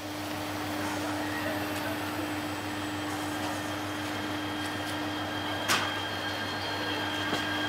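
ET127 series electric multiple unit standing at the platform, its equipment giving a steady whirring hum with a constant low tone. A single sharp knock sounds about three-quarters of the way through.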